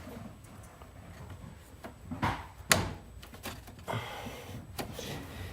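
A few scattered knocks and clunks of parts being handled in a car's engine bay, four short hits spread over a few seconds with quiet in between.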